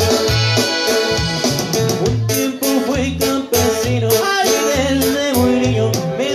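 Live norteño-style band playing: a button accordion carries the melody over a rhythmic bass line and keyboard.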